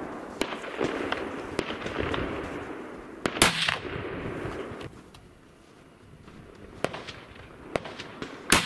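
A single gunshot about three and a half seconds in, with a short echo after it, and a second sharp shot-like crack right at the end. Before the first shot a steady rushing noise fades away.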